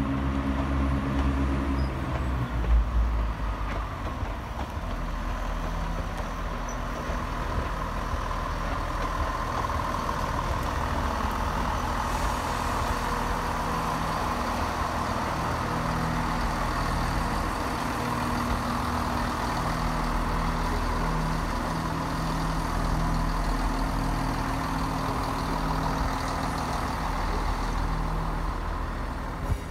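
ScotRail Class 170 Turbostar diesel multiple unit passing by, its underfloor diesel engines running with a steady hum over a low rumble, while wheel-on-rail noise swells as it goes by and then eases as it draws away.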